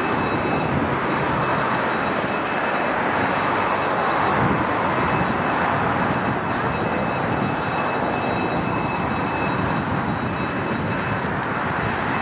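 Agusta A109 helicopter flying overhead: steady rotor and turbine noise with a thin, high, constant whine above it.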